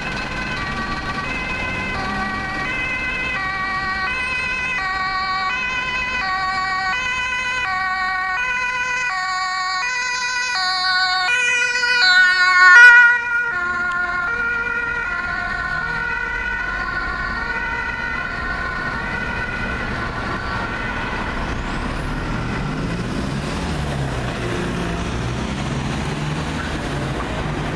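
Two-tone German emergency siren (Martinshorn) on a Red Cross blood and organ transport car, two notes alternating steadily. It grows louder as the car approaches, is loudest as it passes about 13 seconds in, then fades away into traffic noise.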